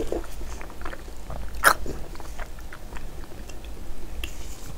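Biting into and chewing a slab of braised pork belly (hong shao rou): wet mouth smacks and small clicks, with one louder smack about a second and a half in.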